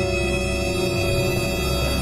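Background music of long, held notes, changing chord near the end.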